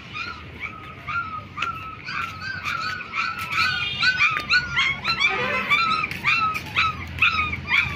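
A 20-day-old black German shepherd puppy whimpering and squealing, a long string of short high-pitched cries about two or three a second.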